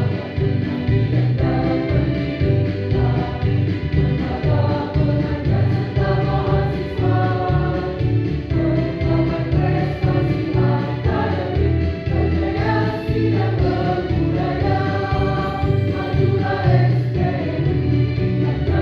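Mixed choir of men and women singing together in harmony, holding long notes that shift every second or two.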